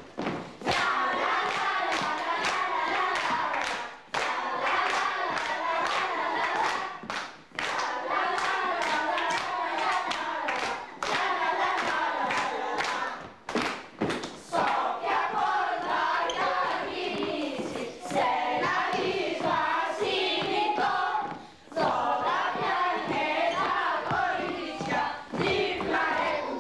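A group of children singing together while they dance, with their shoes knocking and stamping on a wooden floor.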